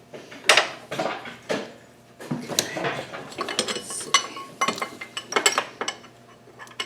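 Metal hand tools and sockets clinking and clattering in irregular sharp knocks, as a 12 mm tool is sought and handled.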